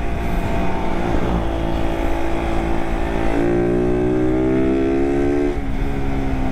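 Suzuki Raider 150 Carb's single-cylinder four-stroke engine running on the road, its note climbing steadily under throttle and dropping sharply at the upshifts, about a second in and again near the end.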